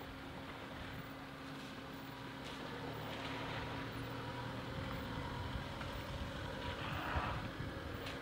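Vehicle engine idling with a steady low hum, under wind on the microphone.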